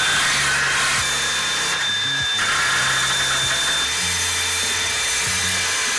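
Cordless drill spinning a wire wheel brush against a rusty steel bracket, scouring off surface rust with a steady harsh hiss and a thin high whine. It stops suddenly at the end.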